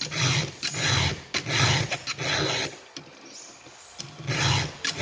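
Round file being stroked across a chainsaw chain's cutter teeth to sharpen them: four rasping strokes in a row, a short pause, then another stroke near the end. The chain is still sharp and only being touched up with a few strokes per tooth as routine maintenance.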